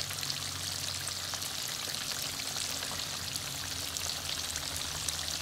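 Small whole fish deep-frying in hot oil in a wok: a steady, dense sizzle full of fine crackles and pops. A faint low hum runs underneath.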